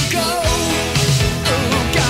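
Background rock song: a singer's voice over guitars and a steady drum beat of about two beats a second.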